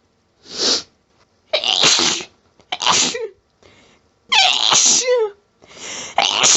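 A person's sneezing fit: about four harsh, throaty sneezes in quick succession, most ending in a falling vocal tail, with shorter breathy build-ups between them. The sneezes come from a nasal tickle that would not stop.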